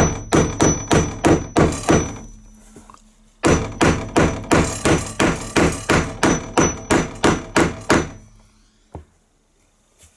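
A hammer driving a glued 10 mm wooden dowel into a drilled-out hinge screw hole, with rapid blows at about three a second. There are two runs of blows, the second and longer starting after a pause of about a second and a half, and one faint knock near the end.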